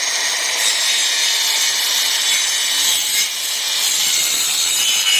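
A 125 mm 18 V cordless circular saw cutting through a wooden board, running steadily under load.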